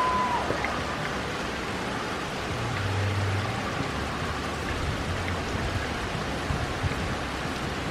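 Heavy rain falling steadily on wet concrete paving and a lawn: an even hiss of drops splashing.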